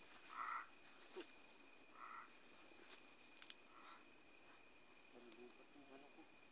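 Faint night chorus of crickets trilling steadily at several high pitches. A short mid-pitched call sounds three times, about a second and a half apart, fainter each time.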